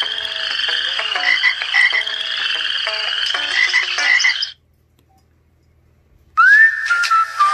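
Ringtones playing through the LG enV3 phone's speaker: a busy pattern of short repeating notes cuts off about four and a half seconds in. After a second or two of near silence the next ringtone starts with a rising whistle-like tone that levels off.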